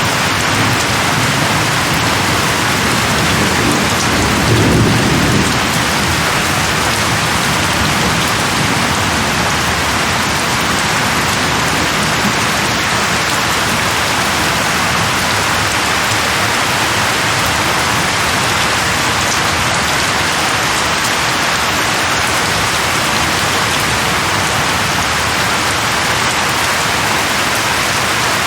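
Steady heavy rain, with a low rumble of thunder in the first few seconds that peaks about five seconds in and dies away.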